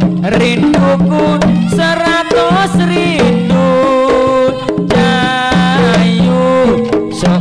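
Live Javanese jaranan music played loud through a sound system: hand-drum strokes under a gliding, wavering melody line over a held low note.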